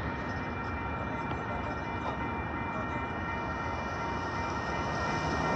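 Train running past at speed and drawing away, a steady wash of rolling noise with a few thin, steady high tones ringing over it.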